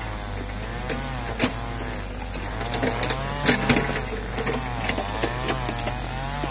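Two-stroke brushcutter running, its engine pitch rising and falling in slow swells as it is throttled while cutting grass, with scattered sharp ticks from the line striking stems. A steady low hum runs underneath.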